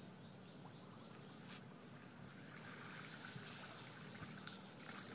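Faint trickling and dripping of water running off a cast net as it is hauled up out of a canal. The sound grows slowly louder, with scattered fine crackles toward the end.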